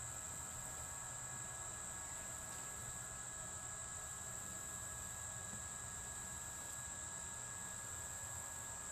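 A steady, high-pitched insect drone with a faint, even hum beneath it from a small 12 V electric fuel transfer pump running as it pumps diesel uphill into the tractor's tank.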